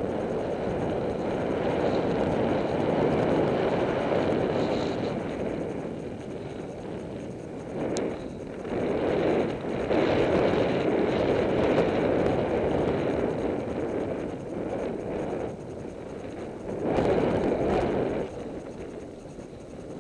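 Wind noise on a ContourHD action camera's microphone, which is covered with plastic film tape to damp it, on a road bike moving at speed. A dull rush that swells and eases every few seconds, with one faint click about eight seconds in.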